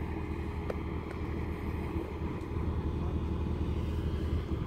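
Heavy construction machine's engine running steadily with a low, even drone.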